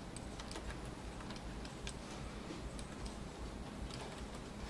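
Faint, irregular clicking of a computer mouse, a few clicks a second, over a low steady hum of background noise.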